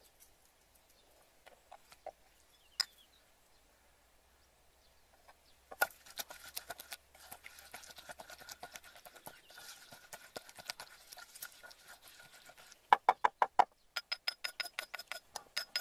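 Wooden pestle pounding chili paste in a mortar, with a metal spoon clinking and scraping against the bowl. A few faint clicks at first; the knocking starts about six seconds in and turns into a fast, loud run of pestle strikes near the end.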